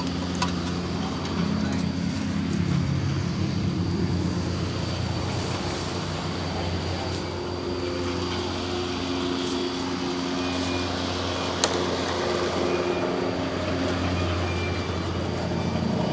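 An engine running steadily in the background, with a few faint clicks and one sharper click about three-quarters of the way through.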